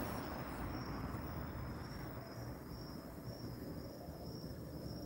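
Crickets chirping faintly, a high pulsing trill in an even rhythm, over low background noise.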